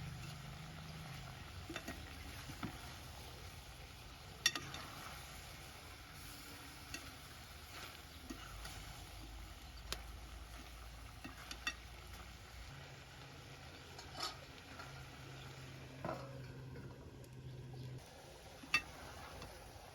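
Chicken curry sizzling in a pot, a faint steady hiss with a handful of sharp clicks scattered through it.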